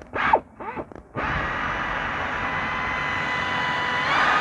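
Power tool motor spinning a deep socket on a long extension to undo a hydraulic brake booster mounting nut behind the brake pedal. It starts abruptly about a second in after two short noises, runs steadily, and rises a little in pitch near the end.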